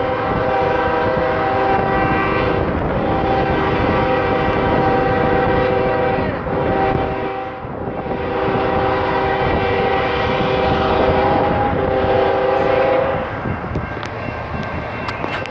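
Diesel locomotive air horn sounding long, loud blasts with short breaks, stopping about two seconds before the end. These are crossing warnings from the approaching locomotive.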